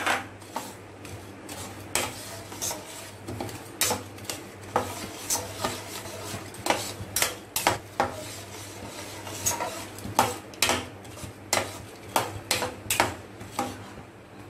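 Perforated steel spatula stirring jaggery lumps in water in a steel kadai, scraping the pan and knocking against it in irregular metallic clicks, as the jaggery dissolves.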